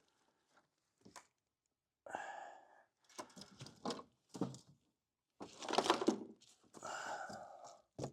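Wires of a wiring harness being handled and pulled through, making four separate rustling, scraping sounds.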